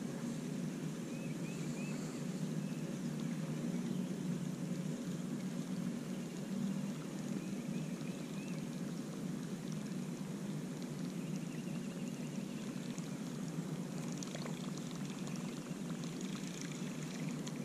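Steady low rush of lake water around a kayak, with the soft whir of a spinning reel cranked to retrieve a lure; faint short high chirps come twice, about a second in and again near the middle.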